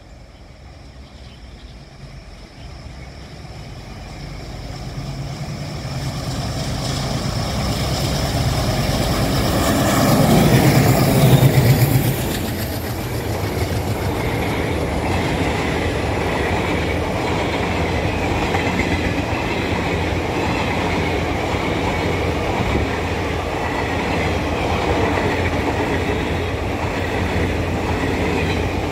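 Twin ALCO diesel locomotives hauling an express train approach, their engines growing steadily louder and loudest as they pass about ten to twelve seconds in. After that the passenger coaches roll by with a steady rumble of wheels on rail.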